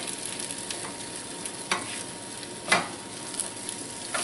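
Egg-and-apple pancake batter sizzling steadily in a frying pan while a metal spatula works under the pancakes to flip them, with two sharp clicks of the spatula against the pan about a second apart, the second louder.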